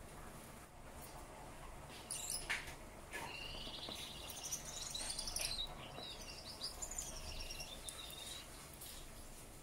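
Male Gouldian finch singing its courtship song: a short hiss about two seconds in, then a string of high, buzzy notes lasting about five seconds.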